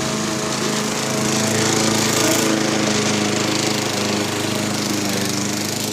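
A small engine running steadily with an even, unchanging hum.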